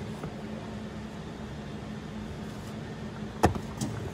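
Steady background hum with a sharp tap about three and a half seconds in and a lighter tap just after, as a molded dog chew is set down on cardboard.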